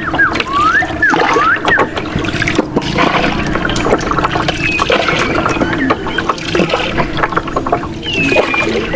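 Water splashing and trickling, with clicks and several short whistled bird calls in the first two seconds and again near the end.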